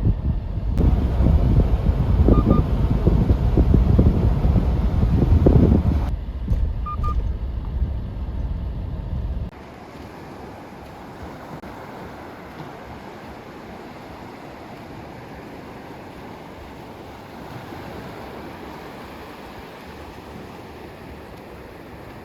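Heavy, uneven wind rumble buffeting the microphone, which cuts off suddenly about nine and a half seconds in. A softer, steady rush of wind and sea surf follows.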